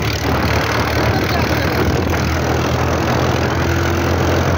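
Tractor's diesel engine running steadily while driving and pulling a trolley loaded with soil, heard from the driver's seat beside the exhaust stack.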